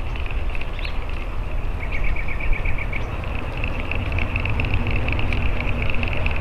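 Wind rumbling on the microphone, over a steady high-pitched chirring of insects.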